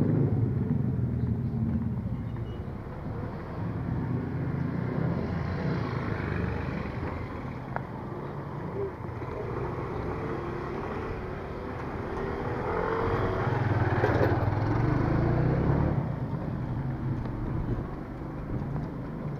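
Street traffic: motor vehicle engines running, loud at the start and then again as motorcycles, including a motorcycle-sidecar tricycle, come closer and go by, loudest about twelve to sixteen seconds in.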